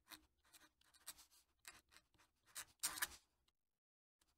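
Fountain pen nib scratching faintly across paper as it writes cursive script: a run of short, uneven scratchy strokes, with a brief pause about three and a half seconds in before the writing resumes.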